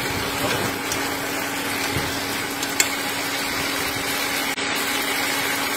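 Tomato sauce bubbling and sizzling in a frying pan around pork meatballs, over the steady hum of an induction cooktop. A single sharp tap about three seconds in.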